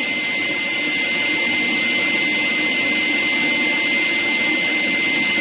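Forced-air propane forge burner running steadily with its flame held at the cup: an even rushing noise of blower air and burning gas, with a thin steady high whine over it.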